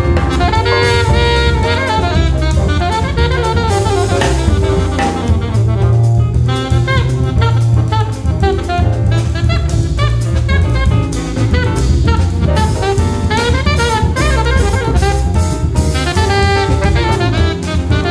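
Jazz quartet playing a samba: saxophone running quick melodic lines over drum kit with cymbals, bass and piano.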